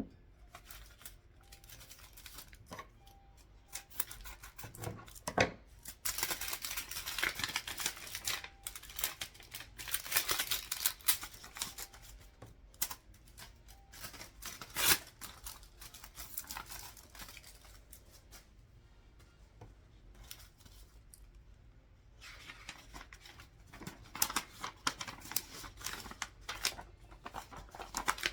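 Paper being handled and torn: crackling rustles made of many quick clicks, coming in stretches with quieter lulls between them.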